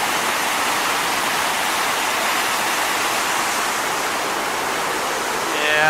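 Steady rush of Sol Duc Falls, a waterfall heard from close by.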